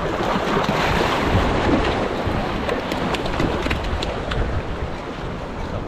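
Wind buffeting an action camera's microphone, with a low fluttering rumble over the wash of surf, and a few light clicks.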